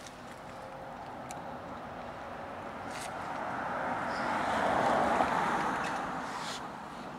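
A car passing by on the street, its tyre and engine noise swelling to a peak about five seconds in and then fading away. A few faint clicks sound over it.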